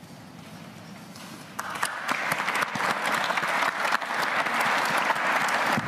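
Audience applause: a quiet room for about the first second and a half, then many people clapping, growing louder.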